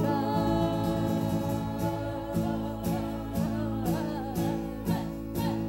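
Live band music: strummed acoustic and electric guitars on a steady beat, with singing voices.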